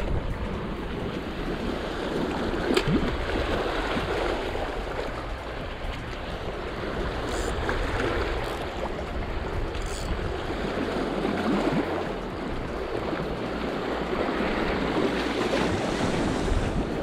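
Small waves surging and washing over a flat rocky shore at the water's edge, swelling and easing every few seconds, with wind buffeting the microphone.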